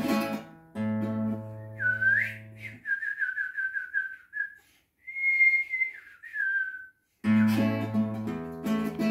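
Classical guitar strumming chords, then a man whistling a bird-like phrase over a fading chord: a rising swoop, a quick trill of repeated notes, a held high note and a falling line. The guitar chords come back near the end.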